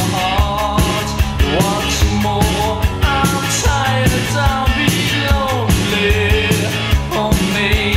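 1980s indie rock song playing: a steady drumbeat and bass, with a voice singing a melody over them.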